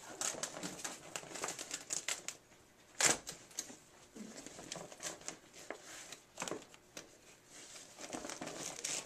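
Softbox fabric rustling and crinkling as it is handled and slid onto a studio strobe, with irregular scratchy handling noises and one sharp knock about three seconds in.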